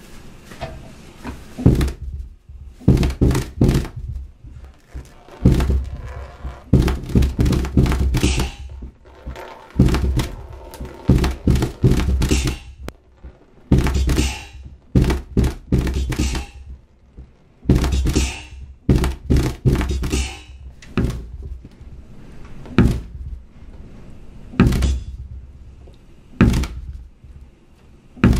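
A run of deep, irregular thumps, each with a sharp click on top, packed close together at first and thinning to single thumps a few seconds apart near the end.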